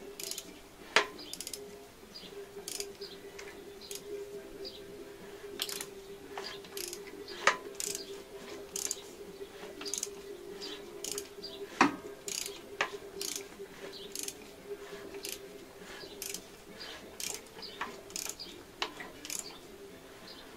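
Mini Cooper S N14 engine turned over slowly by hand at the crankshaft, with the valve cover off, to check that the cam timing stays on its marks. Many irregular clicks from the camshafts, timing chain and turning tool, with three louder knocks.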